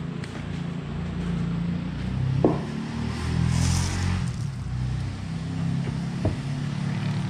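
An engine running steadily at idle, a low hum that drifts a little in pitch. A short sharp clink comes about two and a half seconds in, and a brief hiss comes near the middle.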